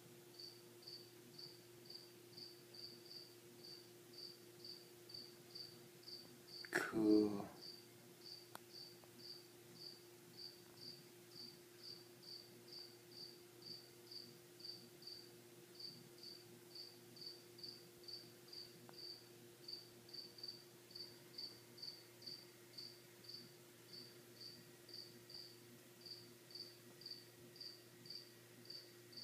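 A cricket chirping steadily, short high-pitched chirps about two a second. About seven seconds in there is one brief, louder sound that slides down in pitch.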